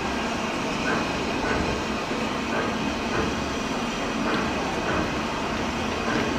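LMS Black Five 4-6-0 steam locomotive No. 45407 running slowly into a station platform with its train: a steady rumble and hiss with faint regular beats.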